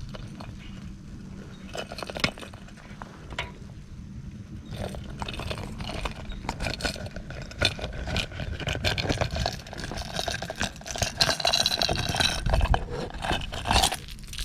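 Close handling noise: scraping, clinking and crunching with many sharp clicks over a low rumble, getting busier and louder partway through.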